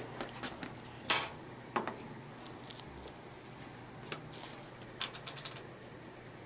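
Scattered clinks and knocks of lab bottles, a jar lid and glassware being handled on a bench. The loudest knock comes about a second in, and a quick run of small clicks follows around five seconds.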